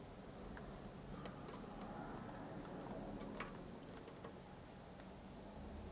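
Faint, scattered light clicks and taps from small hand tools being handled at a motorcycle carburettor, with one sharper click about three and a half seconds in, over a low steady hum.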